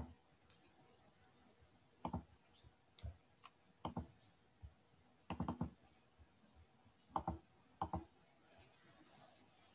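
Faint, irregular clicks from working a computer while switching screens: about a dozen sharp ticks, some single and some in quick clusters.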